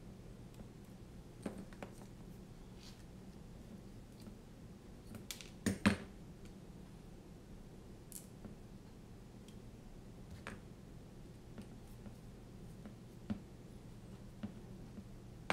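Small clicks and taps of a tiny brushless drone motor, its screws and the carbon frame being handled while the motor is screwed onto the frame arm, with a brief cluster of sharper clicks about six seconds in. A faint steady low hum lies underneath.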